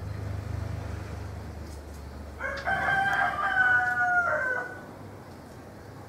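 A rooster crowing once, a single drawn-out crow of about two seconds that starts just before halfway and drops in pitch at its end. A low rumble runs through the first two seconds.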